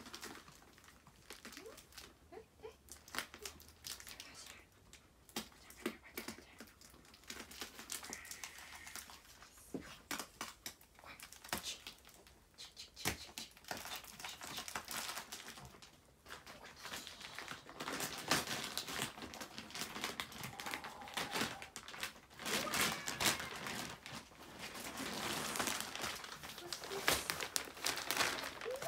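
Clear plastic wrapping crinkling and crackling as a rolled, plastic-wrapped dog bed is handled and unwrapped. The crinkling gets denser and louder over the last ten seconds or so.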